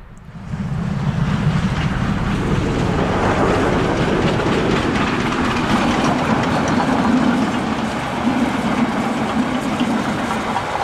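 DR class 52 steam locomotive 52 7596, a two-cylinder 2-10-0 freight engine, running past with its passenger coaches in a steady, loud rumble of locomotive and train on the rails. The sound fades in over the first second.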